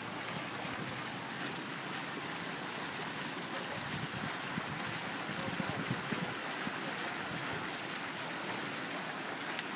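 Wind blowing across the microphone over a steady rush of lake water, with stronger gusts buffeting the microphone around the middle.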